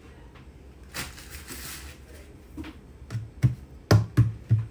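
Kitchen-counter handling noise: a brief rustle about a second in, then about six sharp knocks and thuds in quick succession near the end, as pastry sheets and dishes are handled on the countertop.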